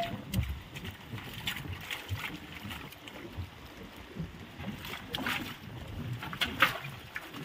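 Water sloshing and splashing in an uneven way, with scattered short splashes and knocks; a couple of sharper splashes come near the end.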